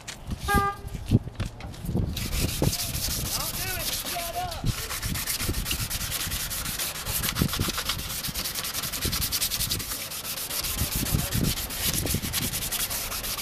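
Wet-sanding a plastic headlight lens by hand with folded 600-grit sandpaper. After a few handling knocks, rapid back-and-forth scratching starts about two seconds in and goes on steadily. This finer grit smooths out the scratches left by the coarser sanding block.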